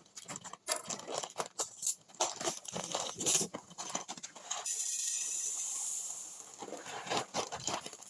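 Kitchen clatter of dishes, pans and utensils being handled: a string of irregular knocks and clinks, broken about two-thirds of the way through by a steady hiss lasting about a second and a half.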